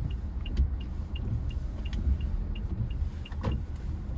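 Low rumble of a Toyota Innova Reborn's engine and tyres heard inside the closed cabin as the car rolls slowly, with a faint regular ticking about three times a second and a few light clicks.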